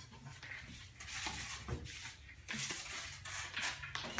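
Cardboard and foam packing material rustling and crunching as it is stepped on and handled, in two spells, the second longer, with a few light knocks.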